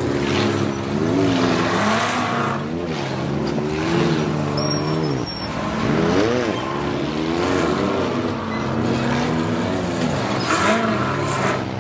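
A Can-Am UTV's engine revving up and down again and again as the driver works the throttle to crawl it over boulders. The pitch rises and falls every second or two.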